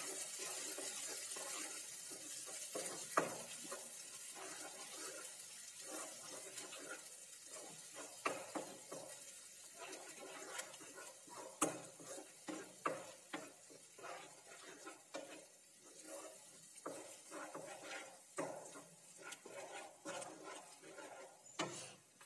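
Flat spatula stirring and scraping a thick onion-tomato masala paste frying in a nonstick kadai, with irregular soft knocks of the spatula on the pan. A faint sizzle fades out in the first couple of seconds.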